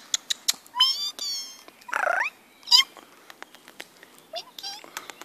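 Cat meowing several times, with one longer meow about two seconds in that rises and falls in pitch, amid a run of sharp clicks.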